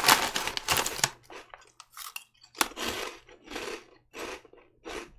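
Crisp octopus-shaped seafood-flavoured snack chips being chewed close to the microphone: a loud crunch in the first second, then a run of short crunches about every half second to second.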